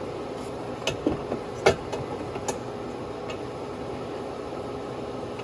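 A few sharp plastic clicks and knocks as a mains plug is pushed back into its socket, the loudest about a second and a half in, over a steady machine hum.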